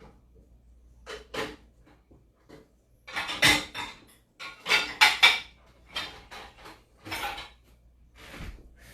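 A spoon scraping and clattering against a mixing bowl as cake batter of butter, sugar and eggs is stirred by hand, in irregular strokes of a second or so.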